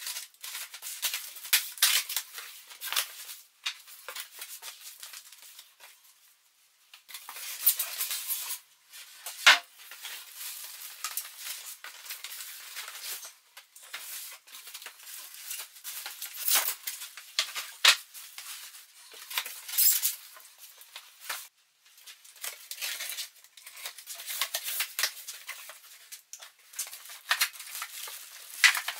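Unpacking: cardboard box flaps and plastic wrapping rustling as parts are handled, with irregular knocks and clinks of the parts being set down.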